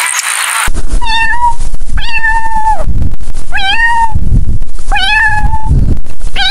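Kitten meowing five times, about a second apart, the second call the longest.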